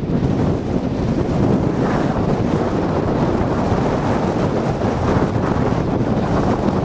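Trophy truck's engine running as the truck drives past, mixed with heavy wind rumble on the microphone, a steady dense noise throughout.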